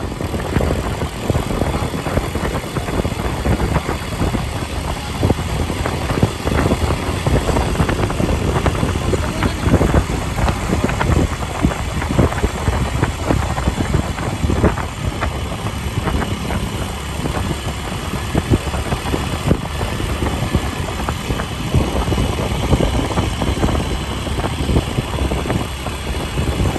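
Vehicle engine running steadily while moving, with gusty wind noise on the microphone.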